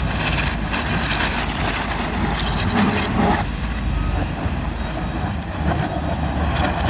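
Heavy excavator diesel engines running steadily in a quarry, a continuous low rumble with scattered metallic clanks.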